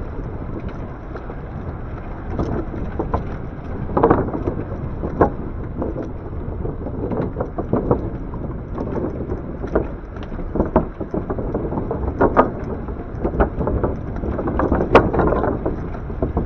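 Wind rumbling over the microphone on a moving e-bike, mixed with road noise, with a scattering of sharp knocks and rattles as the bike rides over the road surface.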